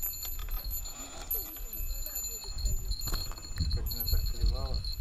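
Rumble and handling noise as a freshly caught white-eye bream is picked up off the sand and unhooked by hand, over thin steady high-pitched tones. A short wavering hum comes near the end.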